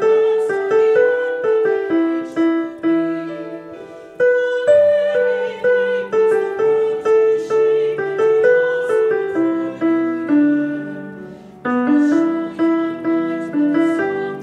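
Piano, likely a digital piano, playing a choral soprano line: a stepwise melody of struck notes over lower accompanying notes. Phrases die away twice, about four seconds in and again after eleven seconds, before the next phrase starts.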